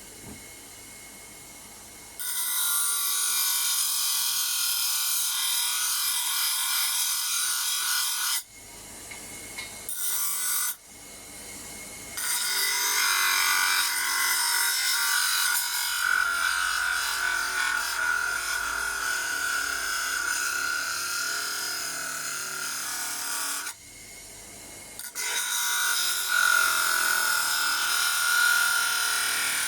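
Homemade disc sander driven by a washing machine motor grinding wood: a loud, rough, hissing scrape in long stretches that break off abruptly twice and start again.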